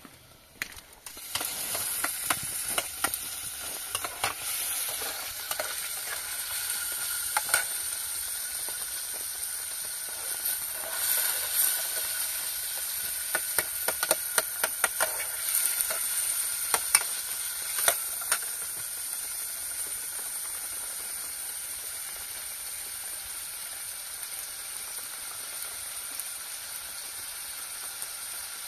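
Food sizzling as it fries in hot oil. It starts abruptly about a second in, with crackling pops that thin out after about 18 seconds into a steady sizzle.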